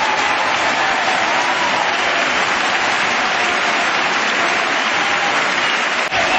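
Steady hiss of rain falling, with faint voices underneath and a brief break about six seconds in.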